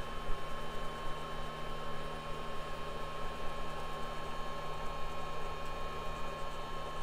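Steady hum and hiss with a constant thin high whine, the running noise of electrical equipment on a workbench.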